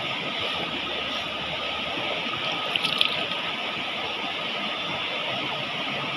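Steady rush of water running over rocks, with a faint click about three seconds in.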